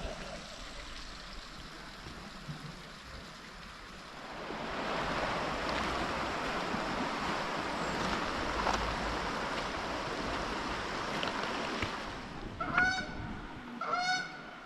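Running water from a spring, a steady rush that grows louder about four seconds in and eases off around twelve seconds. Near the end a goose honks twice.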